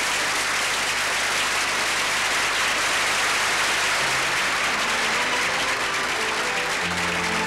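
Studio audience applauding. About four seconds in, orchestral music starts up under the applause.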